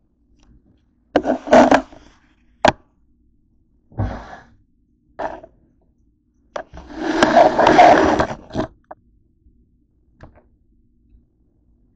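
Close handling noise: the camera and objects being moved and set down on a wooden tabletop, a string of short scrapes, a sharp click and a thump, then a longer scraping rustle of about two seconds, and one faint click near the end.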